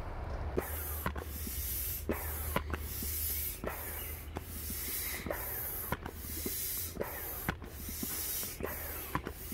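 Inflatable unicorn pool float being inflated: air rushes in about a dozen uneven strokes, each broken off by a short gap and a click.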